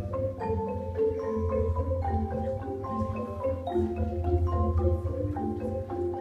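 Background music led by a marimba-like mallet instrument playing a quick melody of short notes over a steady bass, with light percussion.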